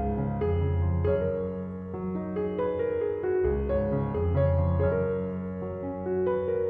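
Background music: a gentle piano tune, notes changing about every half second over sustained low bass notes.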